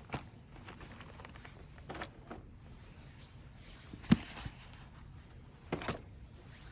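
Scattered clicks and knocks of plastic toy pieces and packaging being handled. The loudest is a sharp knock about four seconds in, with a quick double knock near the end.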